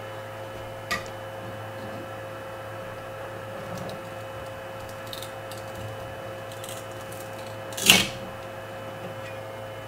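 Steady hum of a Flashforge 3D printer, with faint scrapes and clicks of a metal spatula working under a printed part on the build plate. About eight seconds in comes one loud sharp crack as the part snaps free of the bed.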